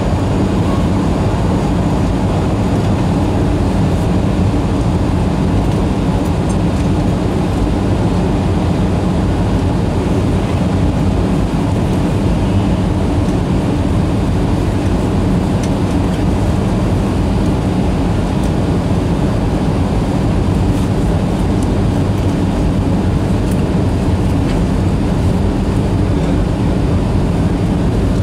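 Steady cabin noise inside a Boeing 737-300 on its descent: the hum of the CFM56-3 turbofan engines mixed with the rush of air past the fuselage, heard from a window seat beside the wing. It holds even and unchanging throughout.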